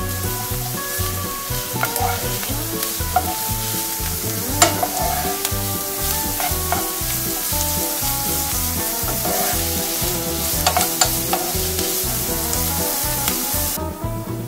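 Onion and grated carrot sizzling in oil in a nonstick frying pan, stirred with a wooden spatula that knocks and scrapes against the pan now and then. The sizzling cuts off suddenly near the end.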